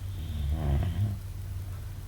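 A single snore about a second long, a rough pitched breath, over a steady low hum.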